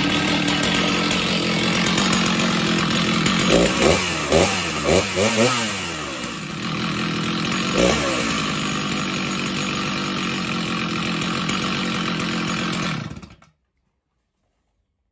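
Stihl MS660 two-stroke chainsaw, its clutch just fitted with new springs, running at idle as a test. About three and a half seconds in it is blipped up to revs four or five times in quick succession, then once more about eight seconds in, and it settles back to idle each time. It is shut off about thirteen seconds in.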